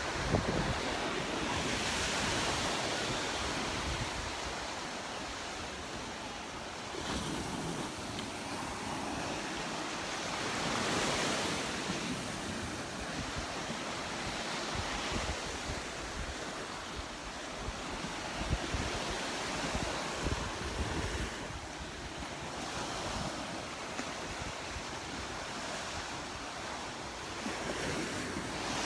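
Gulf of Mexico surf washing onto the beach, waves breaking and swelling every several seconds, with wind buffeting the microphone.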